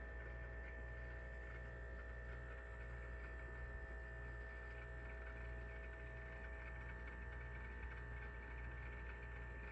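A low, steady electrical hum with a thin high tone above it, with no other events.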